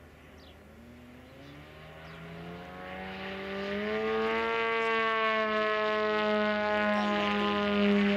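Four-cylinder engine of a large-scale model aerobatic airplane, faint at first, then getting much louder as its note rises over the first few seconds, and holding a steady, slightly falling drone for the rest.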